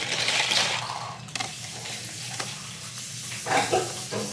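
A red cup's rim being pressed and twisted in a dish of Tajín chili-lime seasoning, a grainy, gritty hiss for about the first second and a half that cuts off abruptly. A softer steady hiss follows, with a few light knocks near the end.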